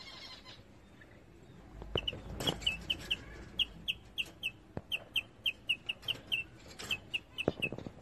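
Rainbow lorikeet chirping: a quick run of short, high chirps, about three to four a second, starting about two seconds in.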